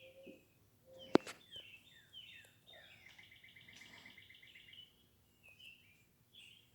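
Songbirds chirping in short falling notes, with a fast trill in the middle. A single sharp click about a second in is the loudest sound.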